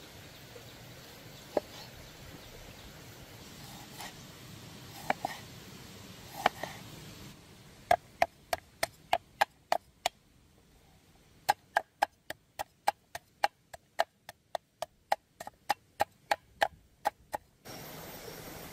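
Knife chopping on a wooden board. A few scattered knocks are followed by two runs of quick, even chopping strokes, about four a second, with a short pause between the runs.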